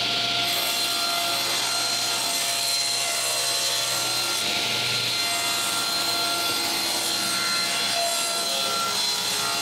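Table saw running steadily while crosscutting glued-up hardwood flooring panels on a sled: a constant motor and blade hum under the hiss of the blade cutting through the wood.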